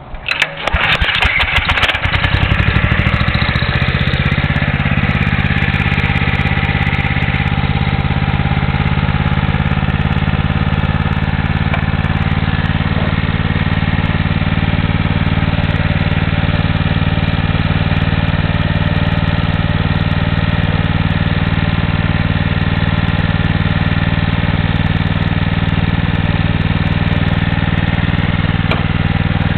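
Honda E2500 generator's G300 single-cylinder engine catching right at the start, firing unevenly for a second or two, then settling into a steady run. It is running on freshly replaced ignition points and condenser.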